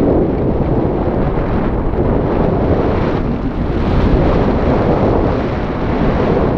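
Wind rushing over the camera's microphone during tandem paraglider flight: a loud, steady rumble of buffeting airflow.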